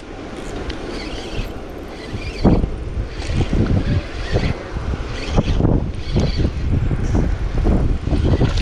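Wind buffeting the microphone: an uneven low rumble that rises and falls, with a few short knocks.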